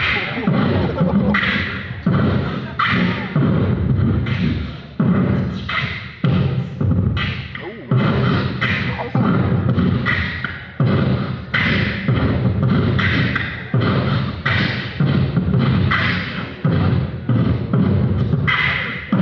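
A man beatboxing: deep bass hits alternating with sharper, hissy snare- and hi-hat-like mouth sounds in a steady repeating beat.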